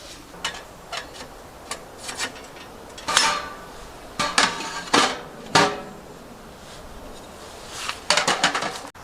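Metal camping gear being handled: light clicks, then several louder metallic clanks with a brief ring, and a quick rattle of clinks near the end.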